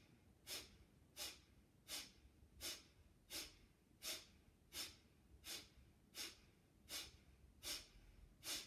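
Kapalabhati yoga breathing: a woman's short, forceful exhalations through the nose, a dozen sharp hissing puffs in an even rhythm of about three every two seconds. This is the pumping breath driven by the diaphragm, with quiet passive inhalations between the puffs.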